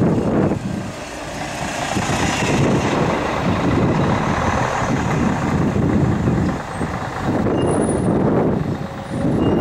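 City bus diesel engines running as buses drive past, the first passing close by; the engine sound dips briefly about a second in, then builds again as the next bus drives round.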